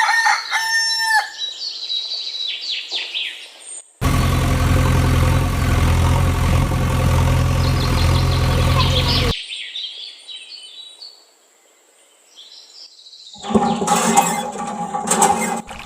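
Birds calling with a rooster crowing. A loud steady drone cuts in abruptly at about four seconds and stops about five seconds later. Near the end a loud mixed sound with several knocks starts.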